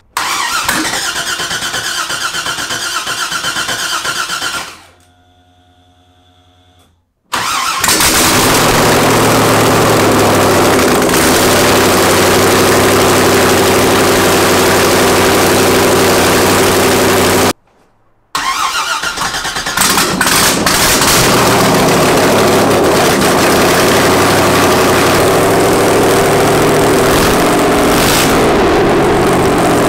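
Freshly rebuilt 2002 LS6 V8 firing up and running with no headers fitted, its exhaust coming straight out of the open ports: ridiculously loud. The sound drops away twice for a moment, about five seconds in and again a little past halfway, then the engine is running again.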